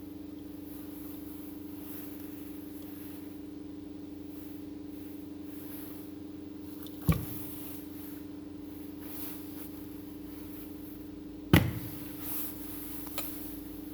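Steady electrical hum with two sharp knocks, about seven and eleven and a half seconds in, and a lighter click near the end, like tools or parts set down on a workbench.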